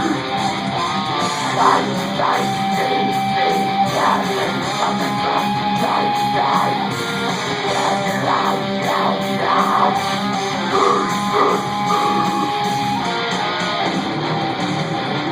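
Rock band music led by electric guitar, with a lead guitar line holding several long sustained notes.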